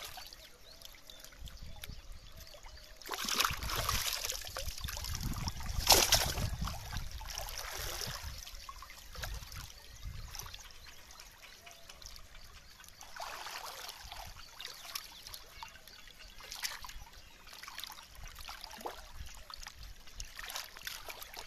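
Water splashing and trickling in uneven surges, with the loudest, sharp splash about six seconds in and smaller splashes later.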